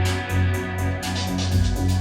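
Techno music with a steady beat: pulsing bass, quick hi-hat ticks and held tones above. A deeper bass comes in about one and a half seconds in.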